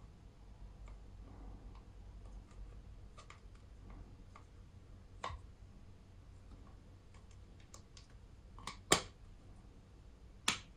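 Hard plastic phone case on an iPhone 12 being pressed and worked at its edges by hand: soft scattered ticks, a click about five seconds in, then sharp plastic snaps, the loudest about nine seconds in and another near the end.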